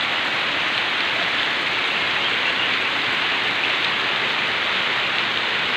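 Heavy, steady downpour of rain with no wind, a dense even hiss of rain falling on surfaces.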